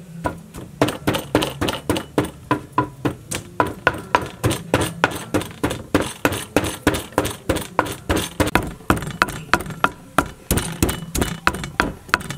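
Wooden pestle pounding galangal in a clay mortar, steady rhythmic knocks at about three a second, each with a short ring as it strikes.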